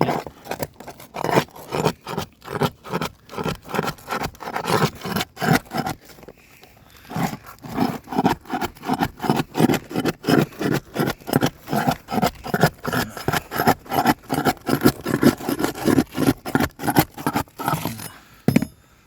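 Repeated scraping strokes, about two to three a second, of a tool working under architectural asphalt shingles to pry them up, with a brief pause about six seconds in. The shingles are bonded to the ice and water shield underneath and will not lift without tearing.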